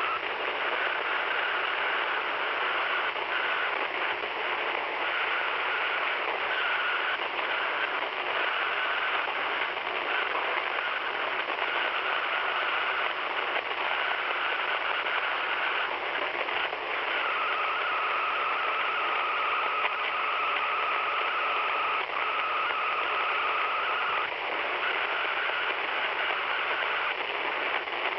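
Radio receiver hiss carrying a whining interference tone that comes and goes in short pieces, then holds longer and a little lower in pitch about two-thirds through. The listener ties the interference to a video being played at the same time, saying its pitch rises whenever the video is unpaused.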